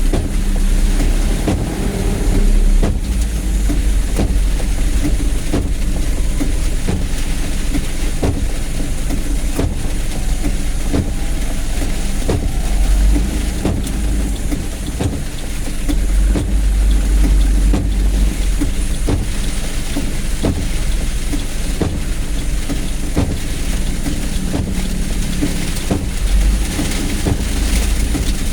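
Vehicle running in heavy rain: a steady low engine rumble under a hiss of rain, with scattered short sharp ticks.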